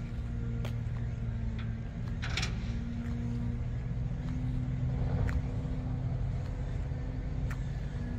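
An engine running steadily with a low, even hum, and a few faint clicks over it.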